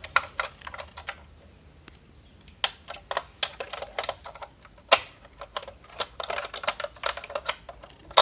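Hard plastic Playmobil toy parts being handled: an irregular run of light clicks and taps, with a louder knock about five seconds in.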